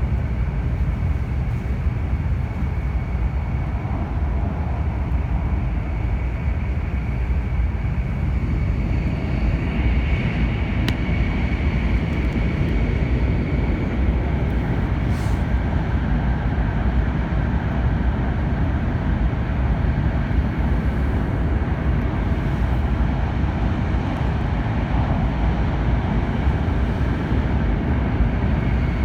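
Interior running noise of an N700 series 8000 Shinkansen car: a steady, loud low rumble with a faint high tone held over it, swelling slightly about ten seconds in.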